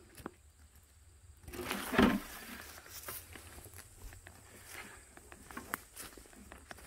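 Footsteps and rustling through dry leaf litter and ferns, with a louder brushing rustle about two seconds in and faint scattered crackles after it.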